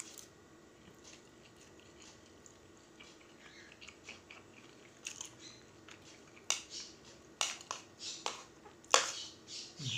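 A person chewing a mouthful of fried instant noodles close to the microphone. It is quiet for about the first half, then a run of sharp wet clicks and smacks follows, the loudest near the end.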